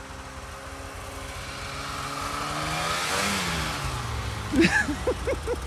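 A snowmobile engine running as the sled drives up through deep powder and passes close by. The engine pitch climbs and grows louder, peaking about three seconds in, then drops away as it goes past. A few brief, louder sounds follow near the end.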